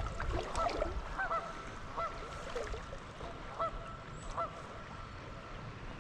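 Geese honking, a run of short repeated calls that thins out after about four seconds, over a steady low rush of background noise.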